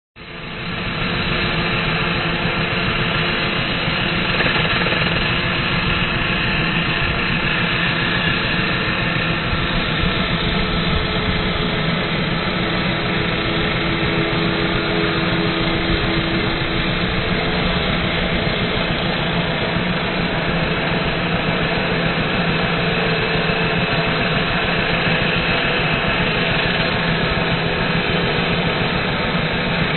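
Handheld grinder with a cutting disc cutting through the steel nose of an excavator bucket, a loud steady grinding that runs unbroken.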